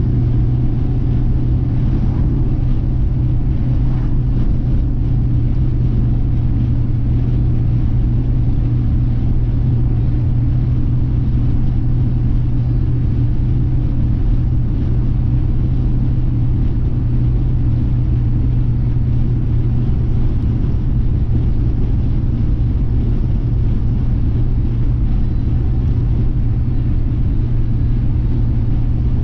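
Car cabin noise while cruising at highway speed: a steady low hum of engine and tyres on the road, unchanging throughout.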